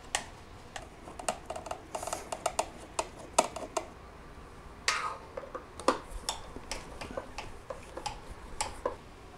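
Irregular light metallic clicks and taps of a T30 Torx driver working at the bolts of a snowmobile's recoil plate, tool tip and bolts knocking against metal.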